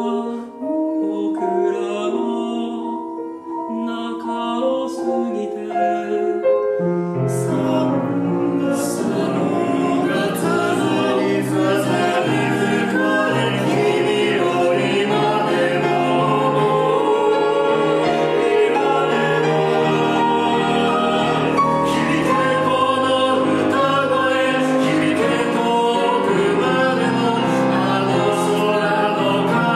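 Small mixed-voice chorus of four singers, one per part, singing a four-part choral arrangement with piano. The first few seconds are thinner with only higher voices; about seven seconds in the lower parts come in and the sound fills out for the rest.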